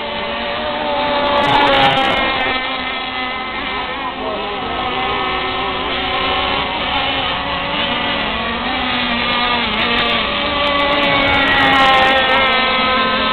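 Small high-revving engines of radio-controlled mono-hull racing powerboats running flat out, several at once, their whining pitches gliding up and down as the boats run the course. The sound swells as a boat passes close about two seconds in and again near the end.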